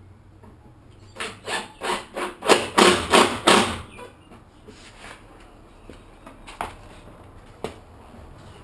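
Hand tool, likely a small hammer, striking the lower part of a timber door: a quick run of about nine blows that grow louder, then a few single knocks.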